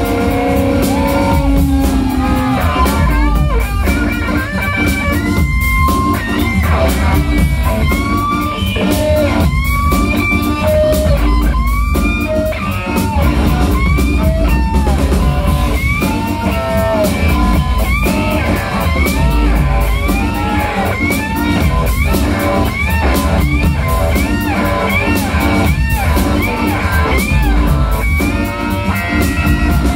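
Live organ-trio band music: a Stratocaster-style electric guitar plays a solo full of bent notes and quick runs, over a drum kit and the low bass line of a Hammond organ.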